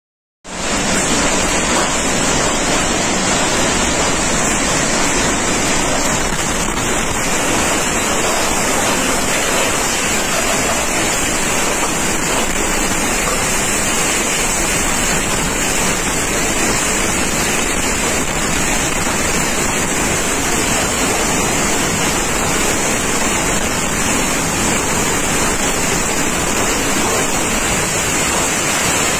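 Inflow winds of an F4 tornado: a loud, steady rushing noise that starts abruptly just after the beginning and never lets up.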